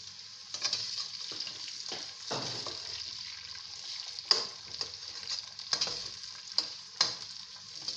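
Onions frying in a pot with a steady sizzle, broken by intermittent scrapes and knocks of stirring against the pot, the sharpest about four seconds in.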